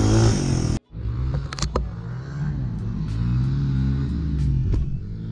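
Honda CRF100F's small air-cooled single-cylinder four-stroke engine running under throttle, cut off abruptly less than a second in. After a sharp break, a quieter motor runs with wavering pitch under scattered sharp clicks.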